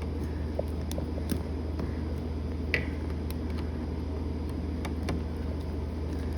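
Small screwdriver turning a switch-plate screw, giving a few scattered light clicks and scrapes over a steady low hum.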